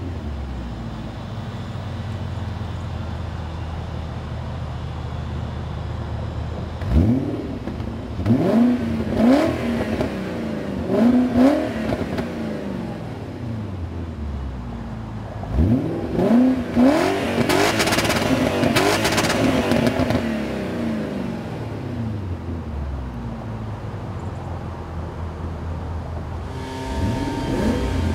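1994 BMW 530i E34's V8 exhaust idling, then blipped in a run of quick revs that rise and fall. It is then held against a very fast rev limiter for about three seconds, stuttering, before dropping back to idle. The exhaust is louder than stock, which the owner suspects may be a catalytic converter delete. Near the end, revving is heard from inside the cabin.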